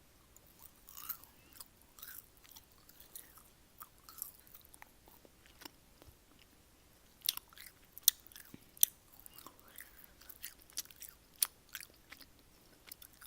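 Close-up chewing: wet mouth clicks and smacks at an irregular pace, a few sharper smacks standing out in the second half.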